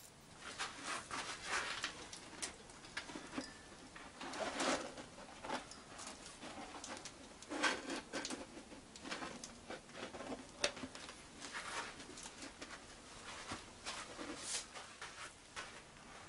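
Stiff sheet material being handled and rolled into a cylinder for a casting flask: irregular crinkling, rustling and scraping, with a few sharper knocks against the wooden base.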